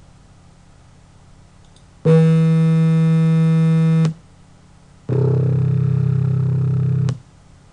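Two low pitched tones played back one after the other, each about two seconds long, starting and stopping abruptly. They are a piano's C1 note and its imitation built from a sum of pure tones. The first is a steady tone rich in evenly spaced overtones; the second is darker and wavers slightly.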